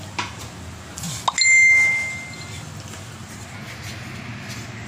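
A metal cooking utensil clinks against a frying pan, then one clear metallic ding rings out about a second and a half in and fades over about a second.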